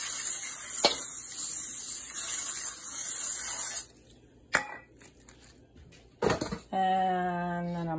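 Aerosol coconut oil cooking spray hissing steadily from the can as it greases the bottom of an aluminium foil baking pan, then cutting off sharply about four seconds in. A few light clicks and knocks follow.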